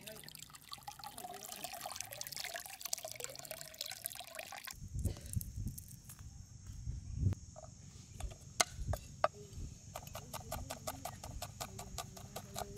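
Water sloshing and trickling as octopus pieces are rinsed in a steel strainer dipped in a stream. After a cut about halfway in come soft handling thuds as garlic is peeled, then a cleaver chopping garlic on a wooden board in quick knocks near the end.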